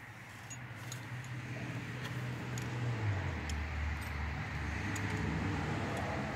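A vehicle going by, its low drone swelling and dropping in pitch about three seconds in, with a few light metallic clicks from an open-end wrench on a brass air-line compression fitting.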